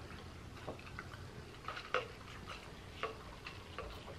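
Faint scattered clicks and ticks of eating and drinking as a glass of soda is lifted and sipped through a straw, the sharpest click about two seconds in.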